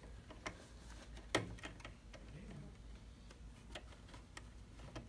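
Small, irregular metal clicks and taps as a finger guard is worked onto the presser-foot area of a low-shank home sewing machine. One sharper click comes about a second and a half in, over a faint low hum.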